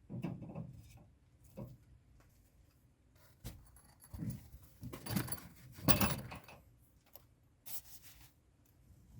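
Irregular handling sounds of a wire mesh net and its fittings: light metallic clinks, knocks and rustles, busiest and loudest about five to six seconds in.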